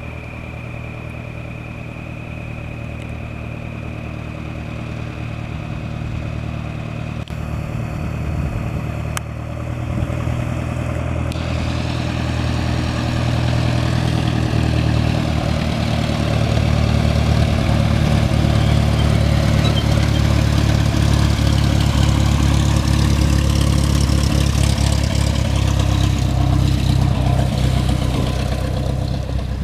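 1979 Cessna 172N Skyhawk's four-cylinder Lycoming piston engine and propeller running at low taxi power. It grows louder as the plane taxis up close and holds loud, then eases off a little near the end as it passes.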